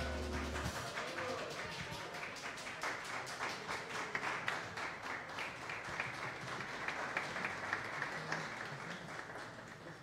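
Small audience applauding, the claps thinning and dying away near the end. The band's final held chord, with a low bass note, rings on briefly and stops within the first second.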